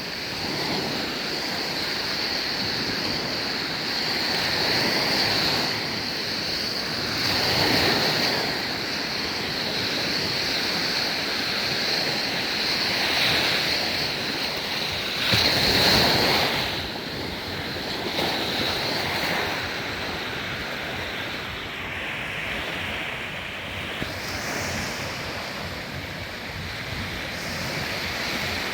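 Black Sea waves breaking and washing up on a beach, swelling every few seconds, with the biggest surge about sixteen seconds in, and some wind on the microphone. A steady high-pitched tone runs under the surf and fades out about two-thirds of the way through.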